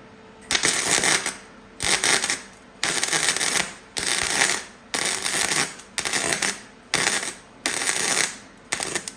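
Flux-core wire-feed (MIG-type) welder stitch-welding thin car sheet metal in short trigger pulls: about nine crackling, sputtering bursts, roughly one a second, each under a second long.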